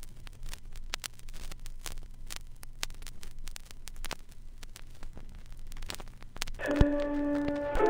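Old-radio static: irregular crackles and pops over a low hum and hiss. Music with sustained ringing tones comes in near the end.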